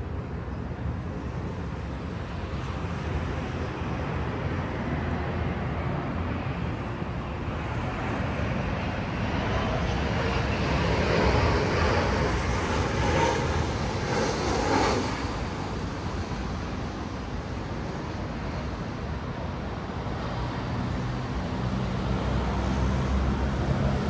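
Jet plane flying low overhead: a rushing engine noise that builds to its loudest about halfway through, then slowly fades, over a steady low rumble.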